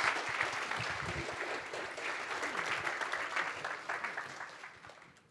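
Audience applauding, with many hands clapping together; the clapping dies away near the end.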